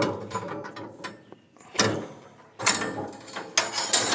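Metal clattering and rattling in several short flurries as a broken sawmill band blade is handled and pulled at.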